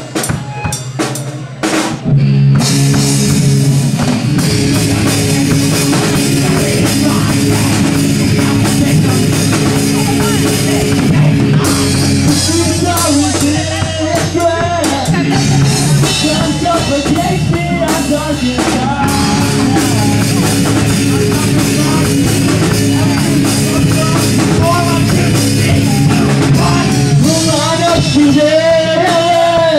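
Live rock band playing through amplifiers: electric guitars, bass guitar and a drum kit. A few separate drum hits open it, the full band comes in about two seconds in, and a singer's voice joins over it from about twelve seconds in.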